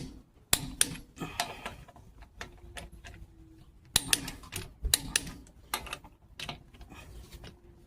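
Sharp metallic clicks and clanks of a hand wrench or ratchet tightening the rear brake bolts, coming irregularly, a few each second, some with a brief ring.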